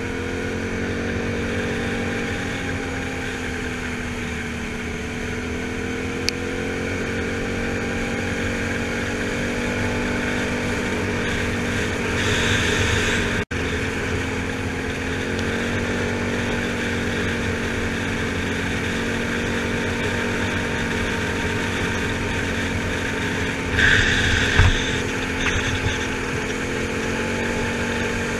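Can-Am Outlander 1000 XT-P ATV's V-twin engine running at a steady cruise on a gravel road, its pitch dipping and rising a little with speed, over tyre and wind noise. A short louder burst of noise comes about halfway through and another near the end.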